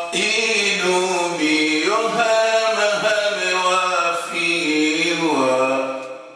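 A man chanting a mourning poem in Comorian as a solo voice, in long, held melodic lines that trail off near the end.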